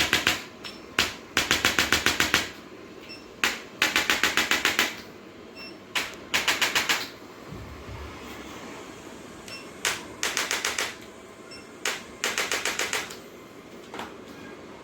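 Handheld chiropractic adjusting instrument firing: a single sharp click, then a quick train of clicks about seven a second for around a second. The pattern repeats about five times, a second or two apart.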